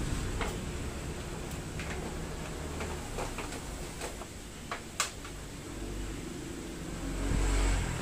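Plastic body panels of a Suzuki Skydrive 125 scooter being pressed back into place by hand: scattered light clicks and knocks of the plastic, one sharper click about five seconds in, over a low rumble that swells near the end.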